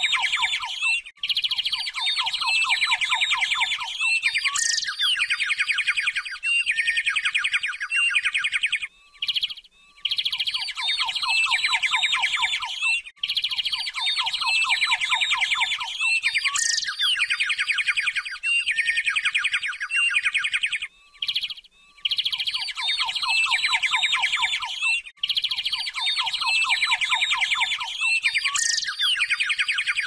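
A looped birdsong recording of dense, rapid chirps and trills, with a high falling whistle. The same passage repeats about every twelve seconds.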